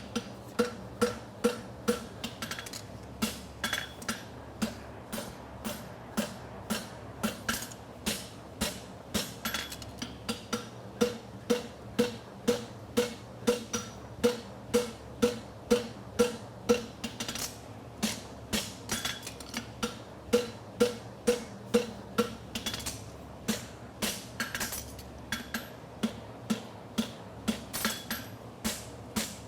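Blacksmith's hammer striking hot steel on an anvil, about two blows a second with a short ring after each, while a horseshoe branch is bent and shaped. A steady low fan buzz runs underneath.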